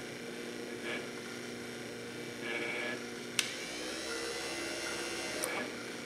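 GM hidden wiper motor for a 1970–81 Camaro running on the bench with a steady whir, worked through its dash wiper switch. A single sharp switch click comes about three and a half seconds in, and the motor's sound changes just after it.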